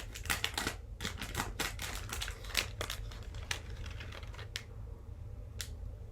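Packaging of a small mailed package being handled and opened by hand: quick irregular crackles and clicks, dense for the first three seconds or so, then only a few scattered clicks.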